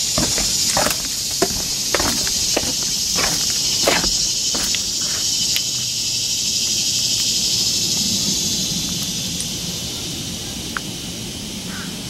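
Steady high-pitched insect chorus that fades away in the last few seconds, with footsteps knocking on a wooden boardwalk, about two or three a second, through the first half.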